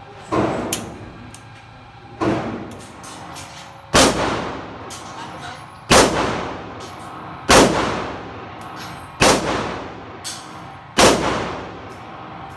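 Semi-automatic pistol fired in slow, deliberate single shots: about seven shots, roughly one every two seconds. Each shot echoes briefly off the walls of an indoor range.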